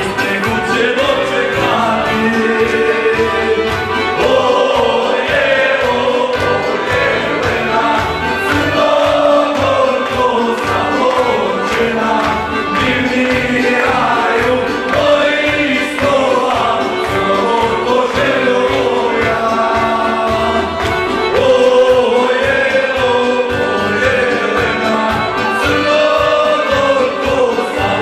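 A group of men and women singing a song together in chorus over music with a steady beat.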